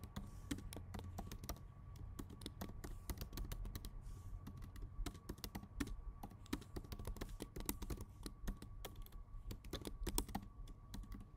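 Typing on a computer keyboard: a long run of quick, uneven keystrokes with short pauses between bursts.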